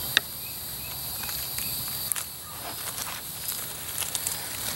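Steady high-pitched chorus of summer insects in woodland, with scattered light clicks and rustles of movement in leaf litter; a sharp click comes just after the start.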